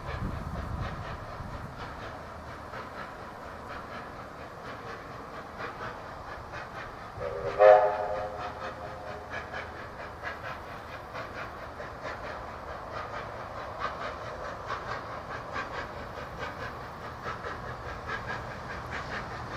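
NSW 32-class 4-6-0 steam locomotive 3265 running toward the listener with a steady rhythmic beat. About seven seconds in, its steam whistle gives one short, loud blast.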